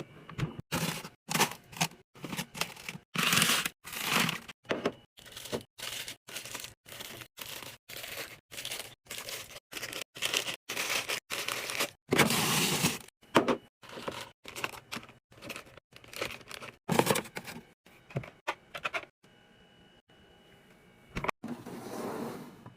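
A rapid string of short clattering and crinkling handling noises as a mini fridge is restocked, items and packaging picked up and set in place, each sound cut off abruptly by fast edits. It thins out near the end to one longer rustle.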